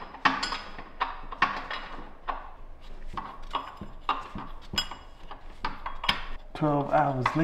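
Hand tools clinking against metal as a motor mount bolt is worked out: irregular sharp metallic clicks and taps. A brief low voice sound near the end.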